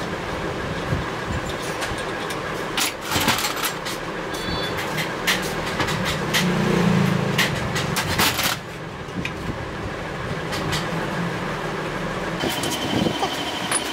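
Scattered metal clicks and taps as small parts are fitted by hand to a cast-iron sewing machine head, over a steady workshop machinery noise that swells into a louder hum for about two seconds in the middle.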